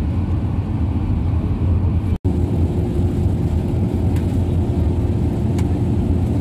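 Steady engine and road rumble inside a moving long-distance coach. The sound cuts out for an instant about two seconds in, and a faint steady hum runs alongside the rumble after that.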